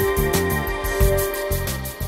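Instrumental background music with a steady beat, beginning to fade near the end.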